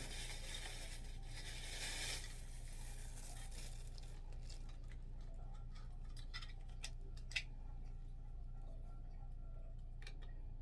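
Rustling of packaging for the first couple of seconds, then scattered small clicks of plastic parts being handled as a ring light phone mount is put together, with one sharper click about seven seconds in. A steady low hum runs underneath.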